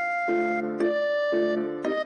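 Background music: a light keyboard melody of plucky piano-like notes in a steady rhythm.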